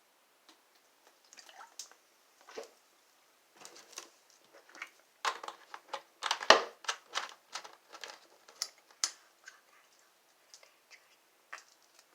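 Wet gulping and swallowing sounds from someone chugging soda from a bottle: an irregular run of short clicks and smacks, thickest and loudest about halfway through.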